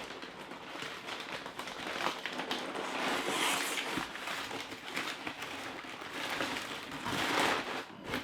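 Plastic bubble wrap and packing paper being pulled out and crinkled while unwrapping a parcel, a continuous rustling crackle with many small clicks that gets louder twice.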